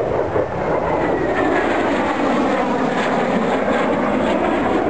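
A CF-18 Hornet's two General Electric F404 turbofan engines heard as the jet flies past: a loud, steady jet rush with a faint gliding whine above it.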